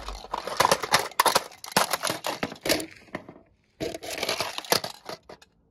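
A hammer smashing a plastic toy telephone: a dense run of sharp cracks and crunching of breaking plastic, in two bursts with a short pause between them.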